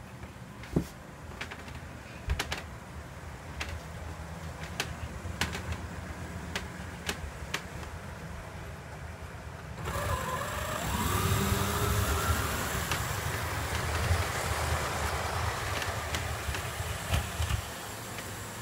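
Model train running on the layout's track: a low rumble with regular sharp clicks. About ten seconds in the sound grows louder and hissier, with a brief rising whine.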